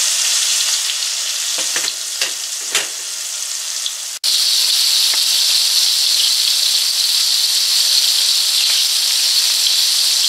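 Breaded pork chops frying in hot shortening in a cast-iron skillet: a steady sizzle of bubbling oil. A few short sharp sounds come around two seconds in, and after a brief break about four seconds in the sizzle returns louder and brighter.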